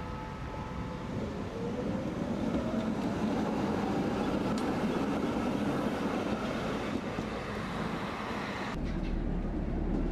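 Articulated tram pulling away and passing close by, its motor whine rising in pitch as it gathers speed over the rumble of wheels on rail. About nine seconds in, the sound changes to the tram's running noise heard from inside the driver's cab.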